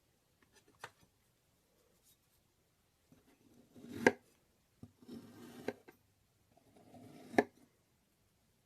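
A blade slicing through kinetic sand three times: each cut is a short, soft crunching scrape that ends in a sharp click.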